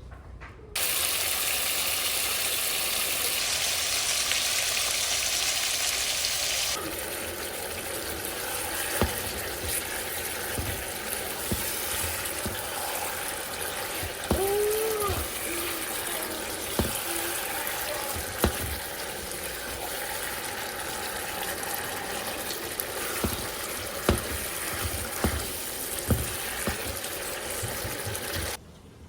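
Water running steadily from a tap, louder for the first several seconds and then lower, with scattered clicks and knocks of things being handled.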